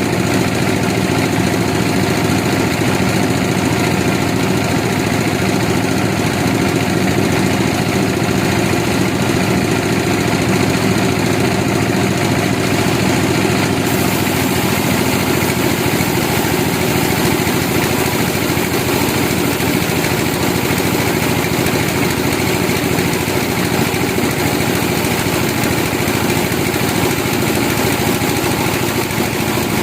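Sawmill machinery running steadily, an engine-like sound that stays even throughout without stopping.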